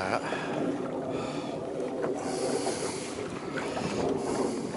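Steady wind and sea noise on an open fishing boat, with a short rushing hiss a little over two seconds in.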